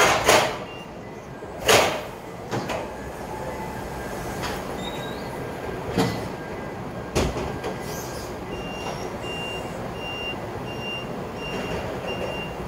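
Forklift work at a loading dock: several loud metal clanks and knocks in the first seven seconds over steady dock noise, then, from about two-thirds of the way in, a Toyota forklift's reversing alarm beeping about twice a second.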